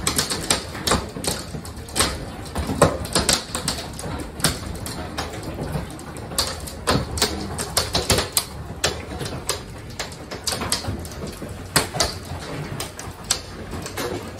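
Large hailstones hitting the house in a dense, irregular barrage of hard knocks, several a second, over a steady hiss of the storm.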